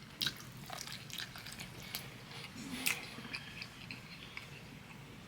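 A person chewing soft oxtail meat close to the microphone: faint, irregular wet mouth clicks and smacks.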